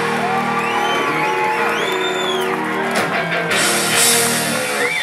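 Live rock band ending a song: electric guitars hold a final chord under crashing cymbals, with a fresh cymbal crash about three and a half seconds in, and the chord stops near the end.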